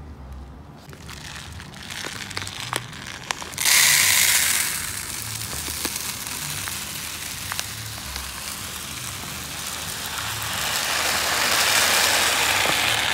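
Dry broken rice poured from a pouch into a plastic tub: the grains run in with a dense, steady hiss that starts suddenly about four seconds in and swells again near the end. Before that, a few light clicks and crinkles from the pouch being handled.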